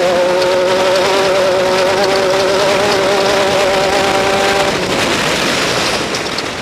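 Off-road race vehicle's engine held at high revs, a steady high-pitched drone with a slight wobble, that drops away about four and a half seconds in, leaving a rushing noise.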